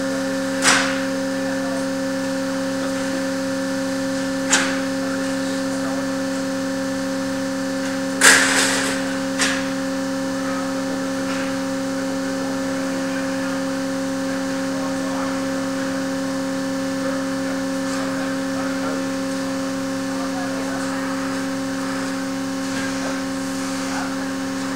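Steady machine hum from the structural test rig, holding two constant tones. Sharp pops break through it about a second in, about four seconds in, and twice more around eight and nine seconds in.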